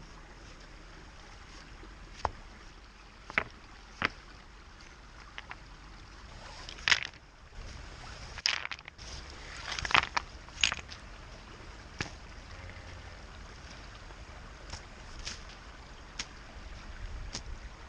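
Scattered sharp knocks and clatters, a dozen or so at uneven intervals, over a steady low rumble of wind and running creek water.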